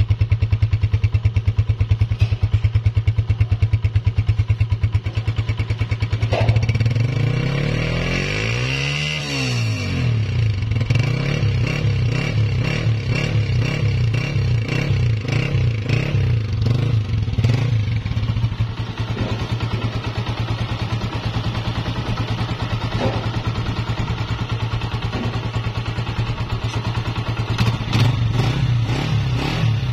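Honda CG 125's single-cylinder four-stroke engine idling, revved up and back down about nine seconds in, then blipped lightly on and off. It runs with its earlier engine noise cured by a new cam gear and piston rings: the sound is called 100% clear.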